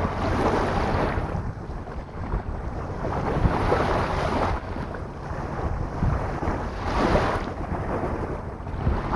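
Sea waves washing onto a beach, three swells of surf a few seconds apart, with wind rumbling on the microphone.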